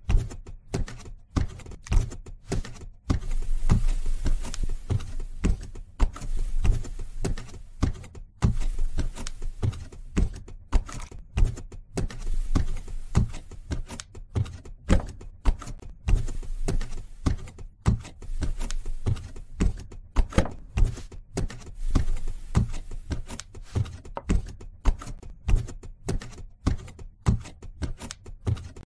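Wooden kick wheel turning under a potter's foot: irregular wooden knocks and thumps, several a second, with a few short breaks.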